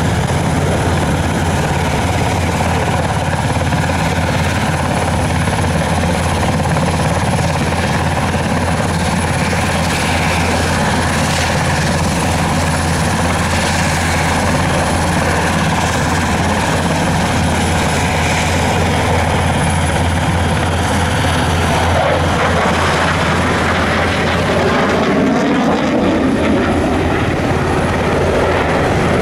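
Steady drone of an NH90 helicopter's twin turboshaft engines running close by, with the jet noise of a Eurofighter Typhoon's twin engines in flying display over it. In the last several seconds the jet's pitch sweeps down and then back up as it passes.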